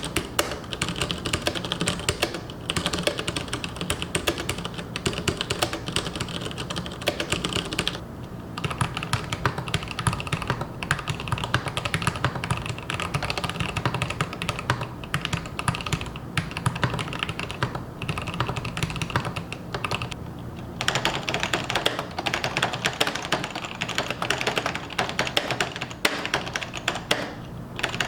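Fast continuous typing on an Mstone Groove T SF mechanical keyboard with fully lubricated Cherry brown switches on 35 g springs: a dense run of soft keystrokes, broken by short pauses about 8, 16, 18 and 21 seconds in.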